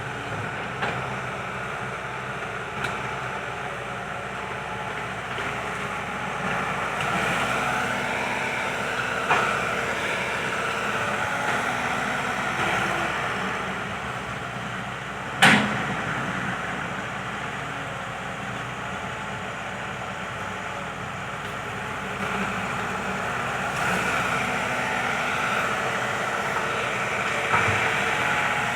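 Kobelco SK120 Mark III hydraulic excavator running steadily at work, with a few knocks, one sharp and loud about halfway through.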